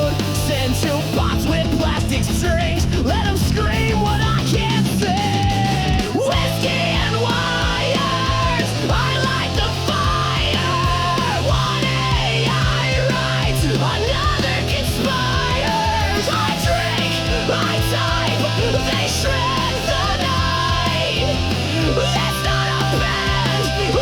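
Loud, AI-generated heavy-metal style rock music with a driving beat and sustained bass. A short rising sweep comes about six seconds in.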